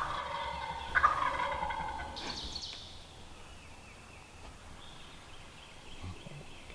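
A wild tom turkey gobbling about 30 yards off: the tail of one gobble at the start, then a full gobble about a second in. He is a hung-up gobbler answering from close range but not coming in.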